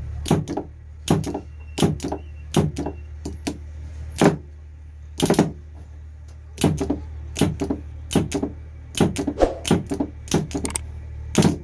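Small metal parts of a dismantled tractor starter motor clicking and tapping against each other as they are handled and fitted, in irregular sharp clicks about one or two a second, over a steady low hum.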